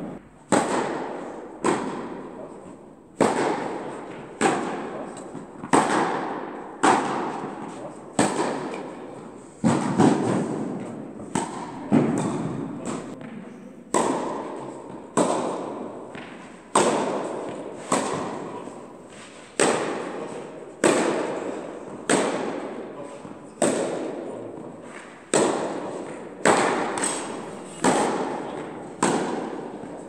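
Tennis rally: a ball struck by rackets and bouncing, a sharp pop about once a second, each followed by a long echo of the indoor tennis hall.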